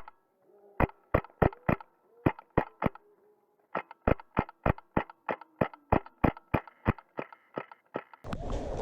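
A Wolverine MTW HPA airsoft rifle firing a rapid string of semi-automatic shots, about three a second, with a short break about three seconds in. The later shots are softer.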